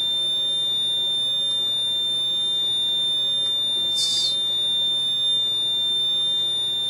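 Continuity tester giving one continuous high-pitched beep, signalling a closed circuit through an output of the heat-pump defrost board under bench test. A short scratchy noise about four seconds in.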